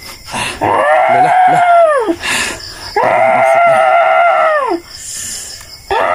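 A woman screaming in three long, high, held cries, each dropping in pitch as it dies away: the cries of a woman the healer treats as possessed, as he urges her to vomit.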